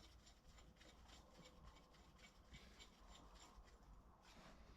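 Near silence: room tone with faint scrapes and light ticks.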